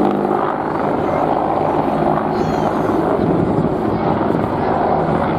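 Apache attack helicopters flying, with steady, loud rotor and engine noise.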